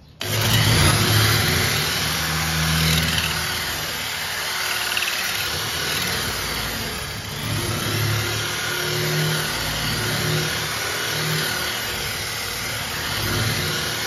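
Corded electric drill fitted with a flap disc, running at speed and grinding rust off sheet steel. It starts abruptly just after the start, then runs steadily: a low motor hum under a harsh grinding noise that rises and falls a little as the disc is pressed and moved.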